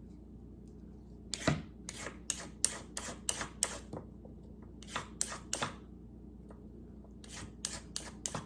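Kitchen knife chopping carrot ribbons on a cutting board: sharp knocks in short irregular runs, with pauses between them.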